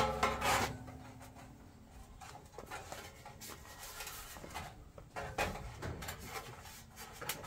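Sheet-metal rain gutter sections being handled and fitted: a sharp clank right at the start that rings briefly, then scattered faint knocks and rattles.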